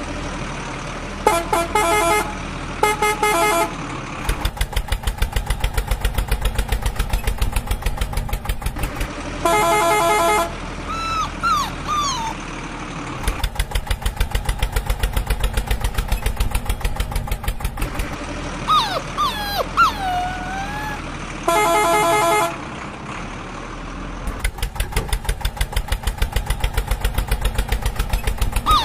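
Tractor engine chugging in a quick, even beat in stretches, broken by short blasts of a vehicle horn, four or five in all. Between them a puppy whines twice in high cries that bend up and down.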